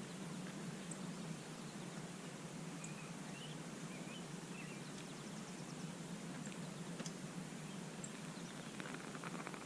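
Faint outdoor background noise: a steady low hum and hiss, with a few faint high chirps about three to four seconds in.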